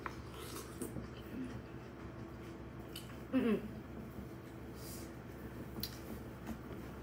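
Quiet chewing and mouth sounds of someone eating a pickled hot chili pepper over a steady low room hum, with a short hummed vocal sound about three and a half seconds in.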